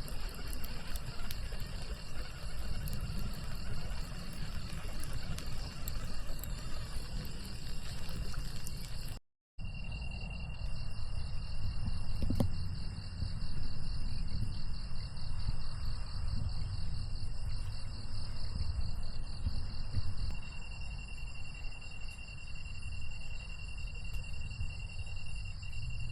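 A steady chorus of insects, cricket-like, trilling in several high pitches over a low rumble. The sound drops out briefly about nine seconds in, and there is a single faint click near the middle.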